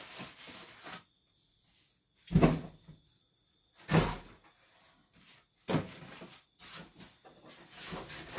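Flattened cardboard being shuffled and lifted off a wooden workbench: rustling and scraping with several dull knocks, the loudest about two seconds in, others near four and six seconds.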